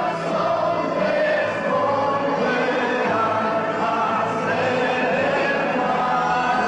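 Many voices singing together in a slow, choir-like song. A siren starts rising near the end.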